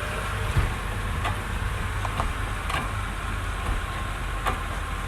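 2005 Honda Accord idling, with a handful of short, sharp clicks and knocks from the front suspension at irregular moments. The knocking is the sign of worn lower control arm bushings letting the arms shift.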